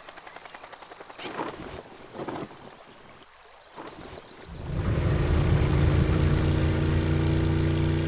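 Cartoon boat engine sound effect: a faint fast puttering with a few brief whooshes, then a little past halfway a louder, steady, low engine drone comes in and holds.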